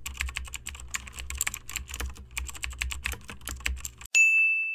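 Typing sound effect: rapid, irregular key clicks for about four seconds, then a single bright bell ding that rings on and slowly fades.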